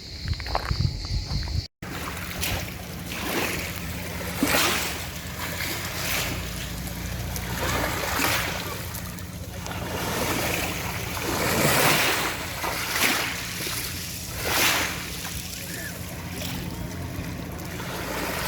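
Sea surf washing in and out, each wash swelling and falling away every second or two, over a steady low hum. About two seconds in, a short stretch with a thin high steady tone breaks off.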